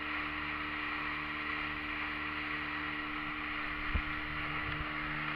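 Engine of a small motorboat running steadily at cruising speed, with water rushing past the hull. A single thump about four seconds in.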